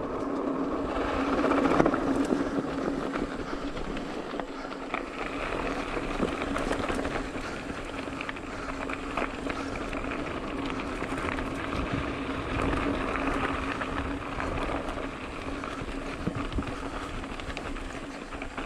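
Mountain bike rolling fast down a dirt singletrack: tyre noise over the dirt with small rattles and clicks from the bike, over a steady buzz.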